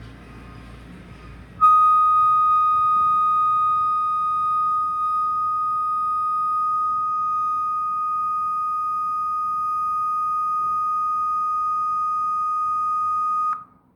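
Acer laptop giving off a loud, steady, high-pitched tone on boot: it starts suddenly after a second or two of faint noise, holds one unchanging pitch, and cuts off abruptly near the end. The fault appeared after the laptop's SSD and keyboard were replaced.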